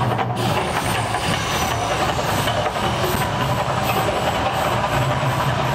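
Mirage resort's man-made volcano erupting: gas fire jets and water plumes going off with a loud, steady roar and a low rumbling hum underneath.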